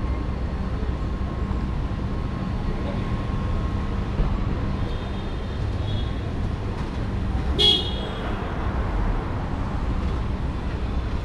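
City street traffic: a steady low rumble of car engines and road noise, with one short car-horn toot about two-thirds of the way in.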